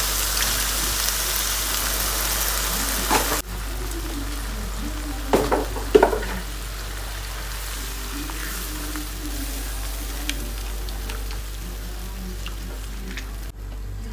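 Sizzling hiss as milk is poured into a hot wok of cooked chicken and flour. After a sudden cut about three seconds in, a spatula stirs the thickening white sauce, scraping the pan loudly a few times.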